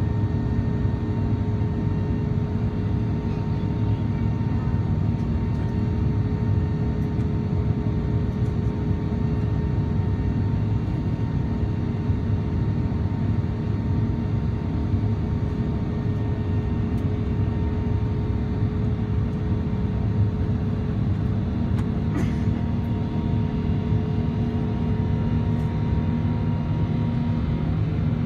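Inside the cabin of an Airbus A380 climbing after takeoff, its Rolls-Royce Trent 900 engines run at climb thrust. They make a steady, deep roar of engine and airflow noise with a constant hum above it.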